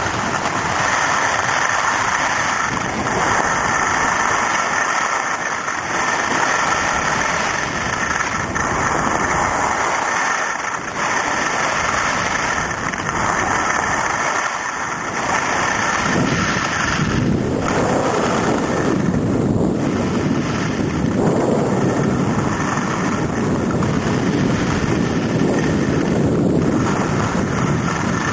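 Skis sliding and scraping over groomed snow during a downhill run, with wind rushing over the microphone. The sound is a steady hiss that grows rougher and heavier a little past halfway.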